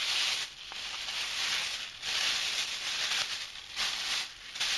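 Thin plastic bag rustling and crinkling in several bursts as a foam tray is slid into it.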